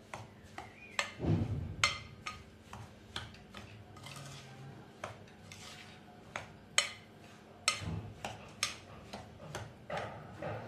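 Hands rubbing semolina, cocoa and oil together in a glass bowl: a soft gritty rustle with irregular sharp clicks and taps against the glass as the oil is worked into the grains.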